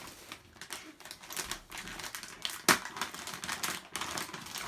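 Shiny metallic Christmas wrapping paper being torn and crinkled as a present is unwrapped: a steady run of crackles and rustles, with one sharp, loud crackle a little over halfway through.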